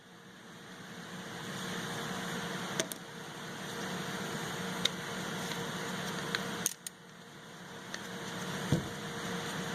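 Steady low hum and hiss of background machinery, with a few faint light clicks.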